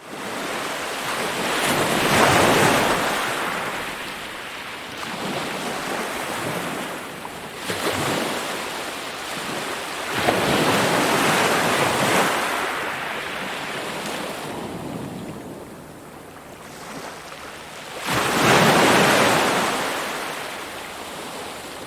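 Ocean surf: waves breaking and washing in, the hiss rising and falling in slow surges several seconds apart, loudest about two seconds in, in the middle and near the end.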